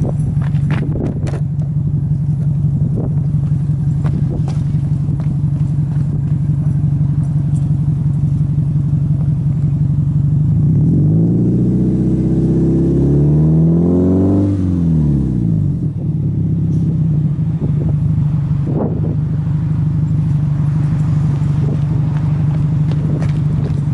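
Subaru Impreza WRX STi's turbocharged flat-four boxer engine heard at the tailpipe, idling steadily. Partway through it is free-revved once, climbing over a few seconds and then dropping quickly back to idle.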